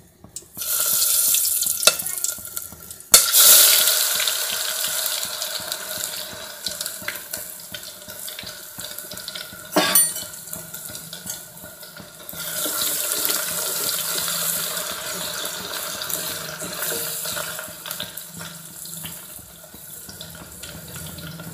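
Deep-frying in hot oil in an aluminium pot: the oil sizzles and hisses, surging loudly each time a handful of food is dropped in, about half a second, three seconds and twelve seconds in. A sharp knock near three seconds and a ringing metal clink near ten seconds come from the utensils against the pot.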